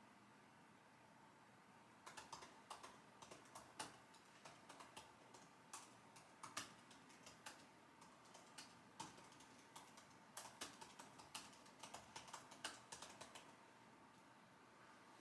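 Computer keyboard typing: quiet, irregular keystrokes that start about two seconds in and stop shortly before the end.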